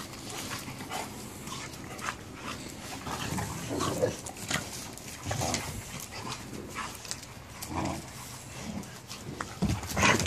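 A group of young pit bull-type dogs play-fighting: irregular short vocal noises from the dogs amid scuffling, with a louder flurry near the end.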